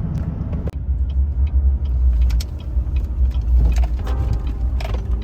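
Low, steady road rumble of a vehicle driving, with a few light clicks and a brief break about a second in.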